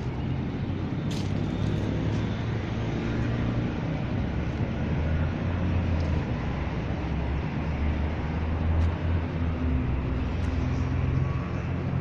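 Steady low rumble of road traffic, with a couple of faint clicks about a second in and again near the end.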